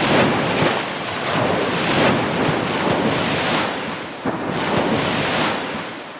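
Ocean surf: waves breaking and washing in a continuous rush that swells and ebbs, fading out near the end.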